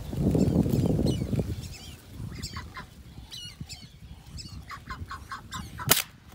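Ducks calling: several short runs of harsh notes, the longest a quick string of about six, over a low rumble in the first second and a half. A single sharp crack comes just before the end.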